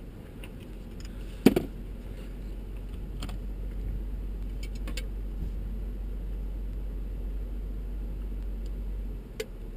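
A vehicle door clunks once about a second and a half in, followed by a steady low rumble that drops away near the end.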